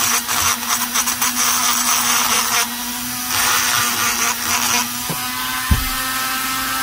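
Handheld rotary tool spinning a small burr and grinding into the intake port of an Echo CS-670 chainsaw cylinder. A steady motor whine runs under a harsh scraping grind that comes in spells and eases about five seconds in while the tool keeps running, with one dull thump near the end.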